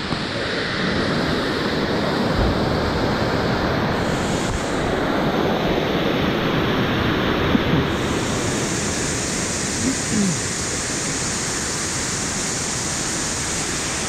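Salto del Mortiño waterfall rushing: a steady, even noise of falling water.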